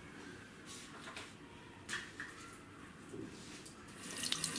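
A few light clicks and knocks of plastic toy figures and a toy house being handled, then near the end a hiss like a running tap starts.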